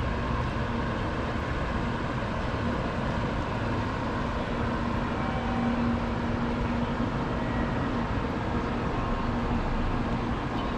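Steady city street background noise: traffic and station-front ambience with a constant low hum running under it.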